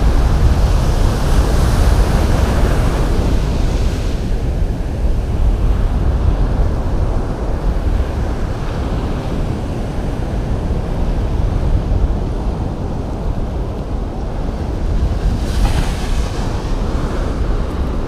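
Surf washing on a sandy beach, with wind buffeting the microphone as a steady low rumble. The hiss of the wash is louder for the first few seconds and swells again briefly near the end.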